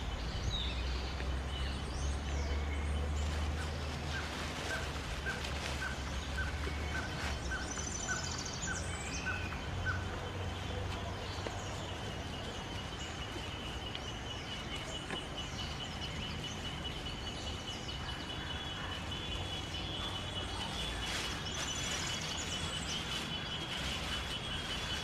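Several wild birds calling and singing, with many short chirps. From about four seconds in, one bird gives a run of short repeated notes, about two a second for six seconds. From about halfway, a fast high trill holds one pitch to the end, over a steady low rumble.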